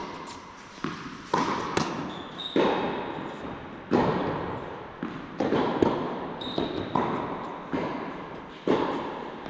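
Tennis rally on an indoor hard court: a series of sharp pops from racket strikes and ball bounces, roughly one a second, each echoing in the large hall.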